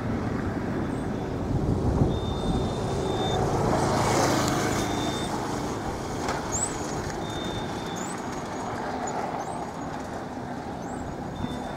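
Road traffic on a bridge, a steady rumble with one vehicle passing loudest about four seconds in.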